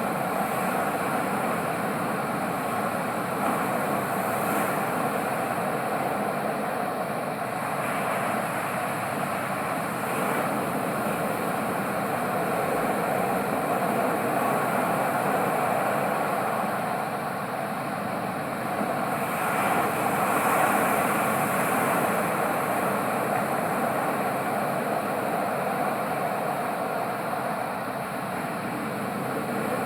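Ocean waves: a continuous wash of surf that swells and eases slowly, loudest about two-thirds of the way through.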